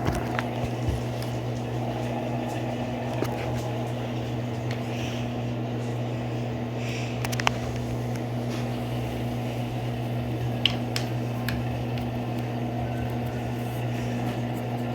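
Electrolux Turbo Economia 12 kg (LTE12) top-loading washing machine running its spin cycle at low speed as the spin draws to an end: a steady motor hum with a low drone, and a few faint clicks.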